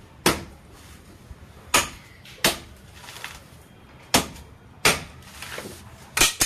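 Machete chopping into a coconut's fibrous husk on a wooden block: about six sharp chops, irregularly spaced and sometimes in pairs under a second apart.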